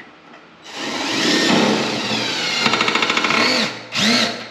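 Handheld electric power tool motor run for about three seconds, its pitch sagging as it winds down, then triggered again in a short burst near the end.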